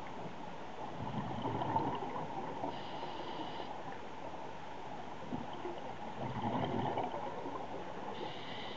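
Scuba breathing heard underwater through a regulator. Exhaled bubbles make a rough, crackly gurgle twice, about a second in and again near the six-second mark. Between them, a short hiss of inhalation comes around three seconds in and again at the very end.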